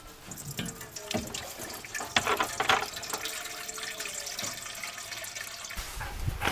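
Water running or being poured, with a few small clicks and knocks, the loudest about two seconds in.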